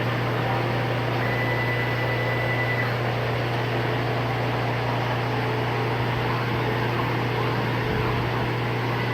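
CNC plasma table's stepper-motor-driven gantry running a test program with no torch fitted: a steady motor hum, with a brief high whine about a second in.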